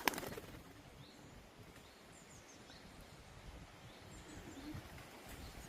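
Quiet outdoor background with a few faint, high bird chirps.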